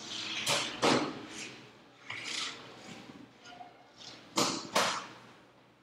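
Several short rubbing and knocking noises, about six in all, with the two loudest close together near the end.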